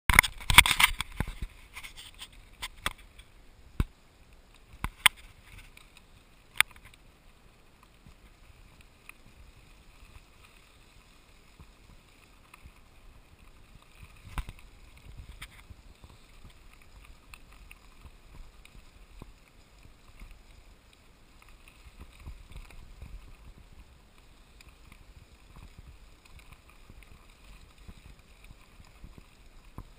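Ride noise picked up by a camera on a bicycle crossing a rough dirt track. A loud clatter in the first second and a few sharp knocks over the next several seconds from the camera being jolted, then a faint steady rumble with occasional bumps.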